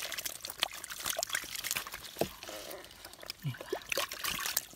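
Hands scooping and squelching through wet mud and shallow water, with many small wet clicks and trickles.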